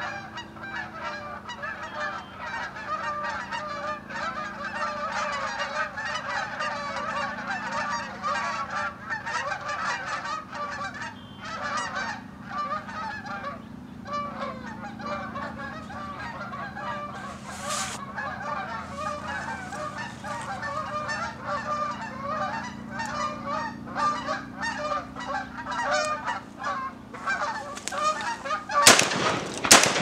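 A large flock of Canada geese honking continuously, many birds calling over one another as they circle overhead. About a second before the end, a shotgun fires loudly.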